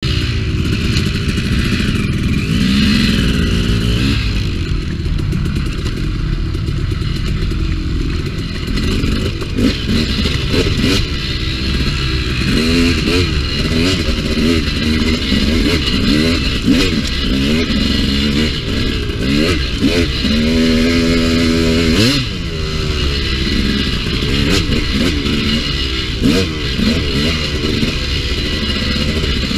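Dirt bike engine revving up and down over and over as the throttle is worked. The pitch rises and falls every second or two, with one longer steady pull about two-thirds of the way through.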